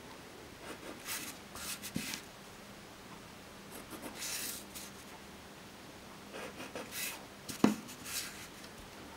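Ballpoint pen scratching short strokes on paper as lines are drawn along a plastic ruler, with the ruler rubbed and shifted across the sheet between strokes. A sharp tap about three quarters of the way through is the loudest sound, over a faint steady hum.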